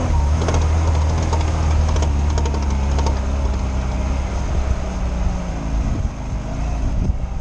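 Lada Niva's four-cylinder engine running under load while driving off-road, heard from inside the cabin as a steady deep drone, with a series of sharp ticks in the first three seconds.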